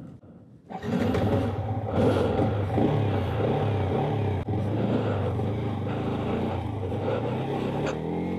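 Yamaha MT-15's 155 cc single-cylinder engine comes in suddenly about a second in and runs under way, its note wavering with the throttle. Near the end it climbs in pitch as it revs up.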